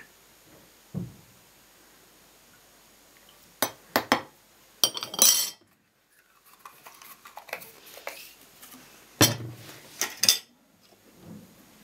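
A metal spoon clinking against a glass jar and ceramic plates: a few sharp clinks about four to five seconds in, and again about nine to ten seconds in.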